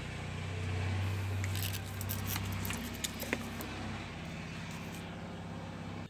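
Light clicks and small rattles of a fan's plastic control knob, switch and capacitor wiring being handled, over a steady low hum.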